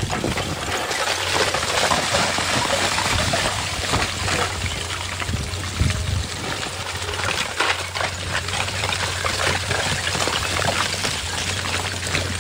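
Water rushing and trickling steadily, with a constant low engine hum beneath and scattered small clicks and knocks.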